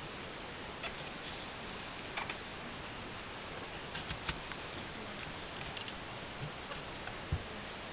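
Small knife cutting and scraping into the flesh of a black radish, hollowing out its centre: a few faint, scattered clicks and scrapes over a steady low hiss.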